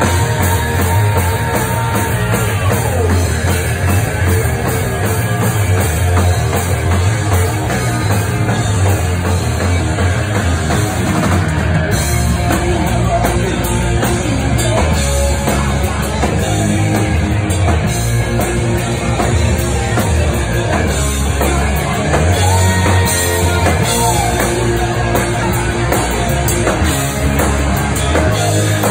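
Live heavy rock band playing loud, with electric bass, a drum kit and a singer's vocals through the PA, running without a break.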